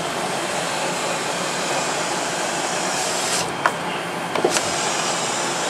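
Steady, even rushing noise, like a blower or fan running, with a few light clicks about three and a half and four and a half seconds in.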